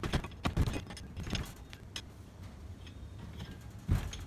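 Small steel pry bar clinking and knocking against a mower engine's clutch as it is levered again and again, trying to shift a clutch seized on the engine shaft. The clinks and knocks come irregularly, about half a dozen of them.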